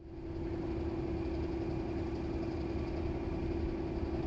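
Diesel locomotive engine idling: a steady hum over a low rumble, fading in at the start.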